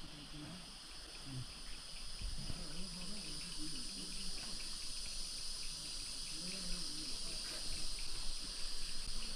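A steady, high-pitched chorus of insects, with faint murmuring voices of other people underneath.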